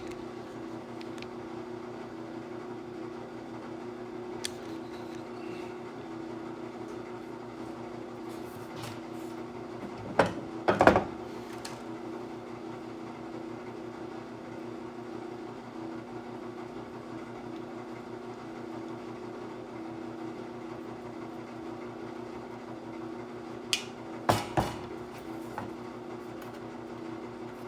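Steady electric machine hum. Two short bursts of sharp knocks and clanks from hard parts being handled come about ten seconds in and again near the end.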